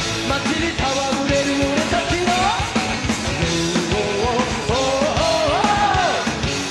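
Live rock band with a male singer belting the vocal line over a driving drum beat and band.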